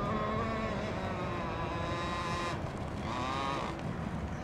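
Radio-controlled racing boat engine running with a high whine, its pitch wavering, dipping about two and a half seconds in and climbing again soon after as the throttle changes.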